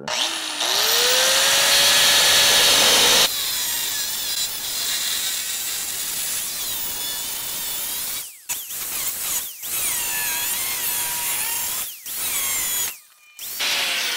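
Corded angle grinder with a cut-off wheel spinning up and then cutting through the steel side of a dump truck bed. The pitch wavers as the wheel bites and recovers, and the cutting breaks off briefly several times in the second half.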